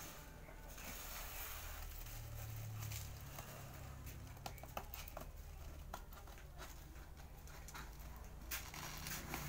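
Scissors cutting through bubble wrap and packing tape on a cardboard box: plastic crinkling and rustling with scattered sharp snips and clicks.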